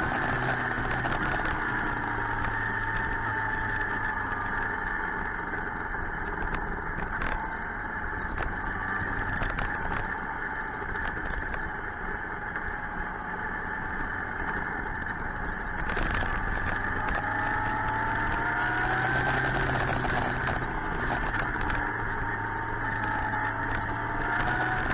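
Suzuki GSX-R 1000's inline-four engine running on the move, with steady wind and road noise; the engine note rises and falls with the throttle a few times.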